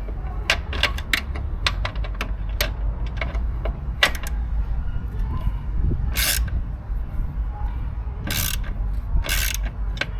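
Ratchet wrench clicking in quick runs as bolts are snugged into the mower's white-metal engine casting, then a few longer rasping strokes near the end, over a steady low rumble.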